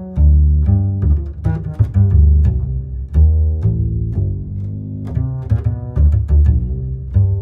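Background music: a tune of short, quickly changing pitched notes over a strong bass line.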